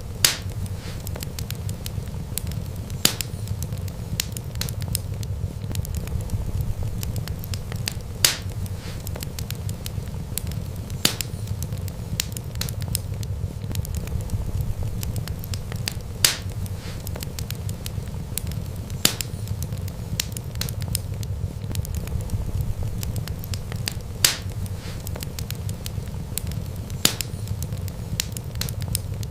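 Wood fire crackling over a steady low rumble, with small crackles throughout and a sharp, loud pop every few seconds.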